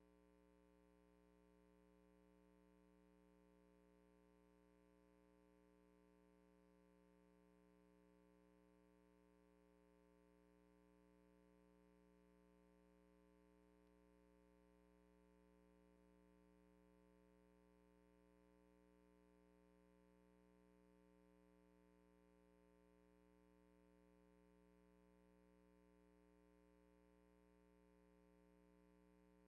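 Near silence: a faint, steady hum of several held tones.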